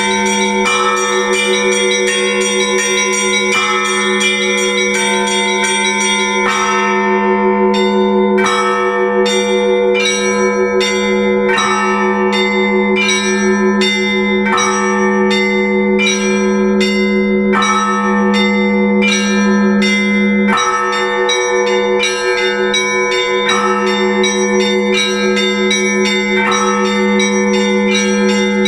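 Russian Orthodox church bells ringing for the Divine Liturgy. Smaller bells are struck in a quick repeating rhythm, about two strokes a second, over the sustained hum of larger bells.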